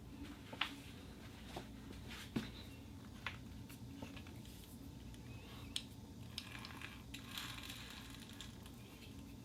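Thin steel sheet handled lightly: scattered small taps and clicks, the sharpest about half a second, two and a half and six seconds in, with a short rustling scrape near the end. A low steady hum sits under it.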